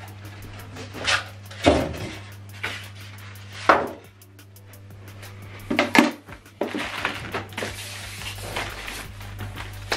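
Cardboard box and styrofoam packing being handled: a series of separate knocks and bumps, then steadier rustling and scraping from about seven seconds in as the foam-packed subwoofer is pushed across the table.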